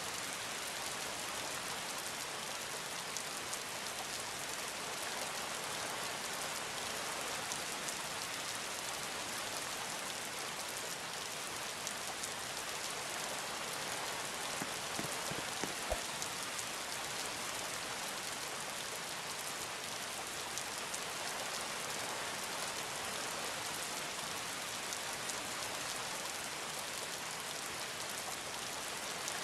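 Steady rain falling, an even hiss with many scattered light drop ticks and a few soft knocks about halfway through.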